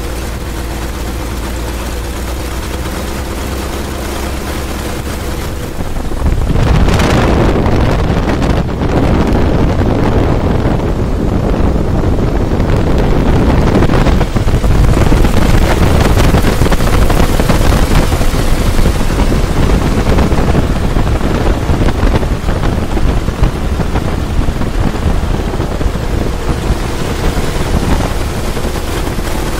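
Open-cockpit biplane's engine and propeller idling steadily, then opened up about six seconds in to a loud, steady full run, with wind buffeting the microphone.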